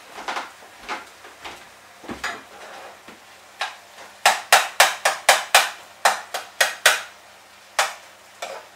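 A utensil knocking and tapping against a frying pan while the fried fish, potato and preserved lemon are broken up and stirred with the anchovies: a few scattered taps, then a quick run of sharp knocks about four a second through the middle, and one more near the end.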